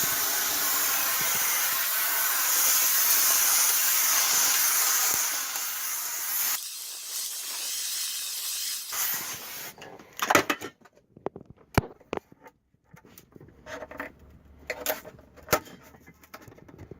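Aerosol can spraying onto sound-deadening mat to freeze it: a long, loud, steady hiss that drops off about six and a half seconds in and trails off softer until nearly ten seconds. Scattered sharp cracks and clicks follow as the frozen mat is broken away.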